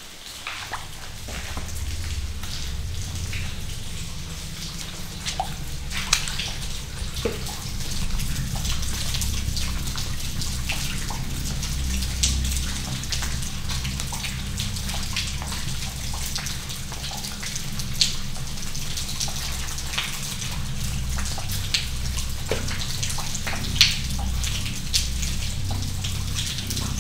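Low, steady rumbling drone with irregular drips and small clicks over it, a dark ambience of dripping water.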